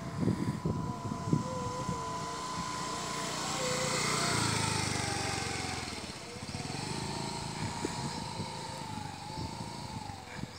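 Motor scooter's small engine running with a whine that wavers in pitch as the throttle changes, growing louder as it passes close by about four seconds in, then easing off as it rides away.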